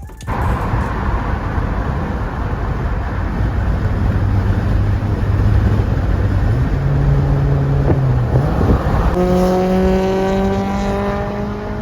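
Honda Civic Si's K20Z3 four-cylinder engine pulling the car under way, over loud road and wind noise; the engine note steps up in pitch twice and then climbs steadily.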